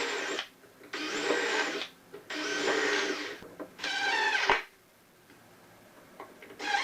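Power drill driving screws into pallet-wood boards: four bursts of the motor about a second each, one ending with a brief rise and fall in pitch, then a pause and a short fifth burst near the end.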